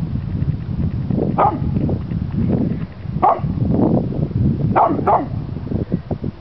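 A chocolate Labrador retriever barking several times in deep, separate barks, with a quick pair about five seconds in, over a steady low rumble. It is alert barking at an unfamiliar object it has not yet made out.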